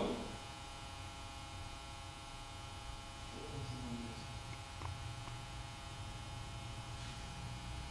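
Steady electrical mains hum and hiss picked up by an infrared camera's microphone. About three and a half seconds in comes a faint, brief voice-like sound, which the investigators present as an EVP, and a small click follows about a second later.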